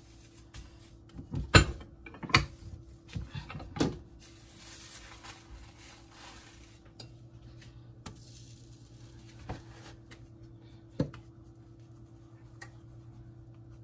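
Kitchen clatter while making tortillas on a comal: a few sharp knocks and clinks of cookware, three loud ones in the first four seconds and two lighter ones later, over a faint steady hum.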